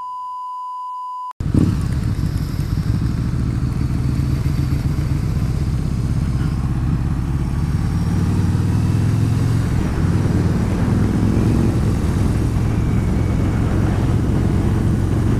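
A steady electronic tone for about a second and a half, then a Harley-Davidson V-Rod's V-twin with Screaming Eagle exhausts running steadily under way, mixed with wind rush, heard through a helmet-mounted microphone that makes it sound tinny.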